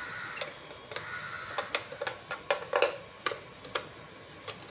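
Small sharp clicks and taps, about a dozen at irregular spacing, as a 9-volt battery is snapped onto its connector and handled into a plastic multimeter case.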